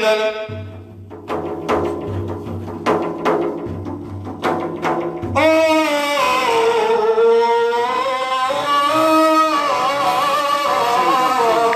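Music: about five seconds of drum strikes over a low held bass note, then a melodic line with a wavering, ornamented pitch takes over. This is the instrumental opening of an Arabic religious praise song.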